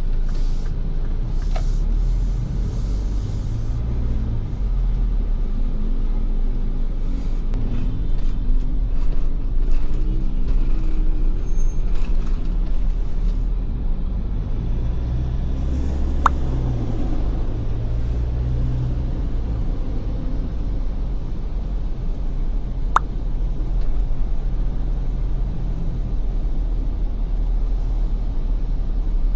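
Ford Everest SUV driving on wet roads: a steady engine and tyre rumble, with the engine pitch rising and falling twice as it speeds up and slows in traffic. Two sharp clicks stand out partway through.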